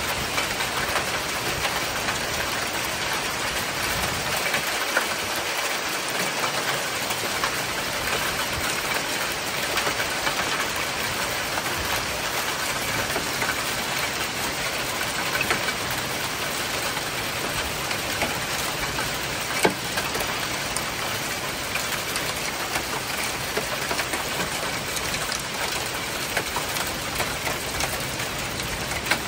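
Heavy rain mixed with hail pouring down steadily: a dense hiss of water on roofs and the balcony, peppered with small sharp ticks of hits, one louder tick about twenty seconds in.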